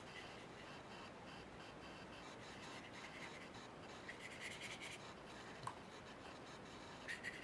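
Faint brushing of a wet number 6 watercolour brush stroking over watercolour paper, over a low steady hiss. The strokes are clearest about four to five seconds in.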